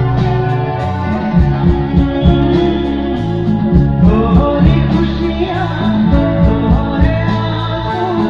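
Live stage music through a PA system: a band with a steady drum beat, bass and guitar, and a male singer singing into a handheld microphone.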